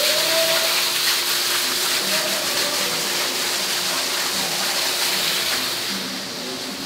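Indoor decorative water wall: a thin sheet of water pouring down a stone face into a glass-sided basin, a steady splashing rush that grows a little quieter near the end.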